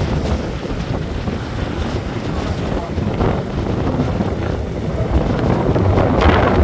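Wind buffeting the microphone over a steady low rumble, growing louder and rougher near the end.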